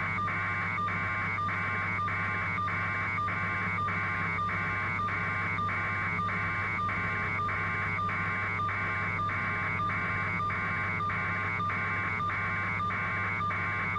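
Helicopter cabin noise heard over a phone line: a steady low hum with a higher pulsing whine that beats evenly, about two and a half times a second.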